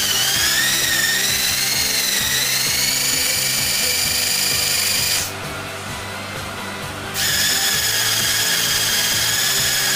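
Electric motorcycle's traction motor driven through a computer-controlled speed test, giving a high whine that rises in pitch as it speeds up. The whine cuts out for about two seconds midway, then comes back at a steady pitch.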